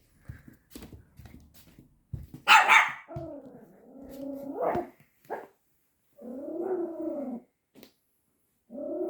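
Pomeranian puppy barking and growling: a sharp bark about two and a half seconds in, then long, drawn-out growling barks, three of them, the last near the end.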